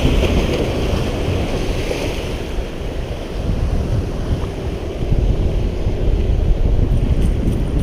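Wind buffeting the microphone over surf breaking and washing against the rocks of a breakwater, a steady rushing noise that swells and eases.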